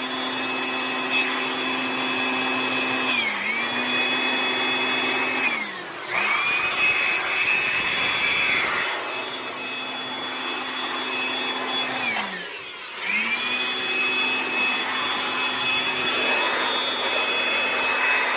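Electric blower running with a steady whine, blowing water out of a refrigerator's ducts after cleaning. It is let off and brought back up three times, its pitch dipping and climbing again each time.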